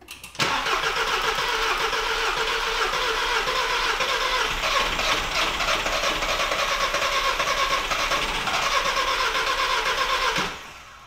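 A 2013 Volkswagen Jetta GLI's 2.0 TSI engine turning over on the starter for about ten seconds on its first start after an intake manifold replacement, then stopping. It does not catch: there is no fuel pressure at the fuel rail after the fuel line was bled.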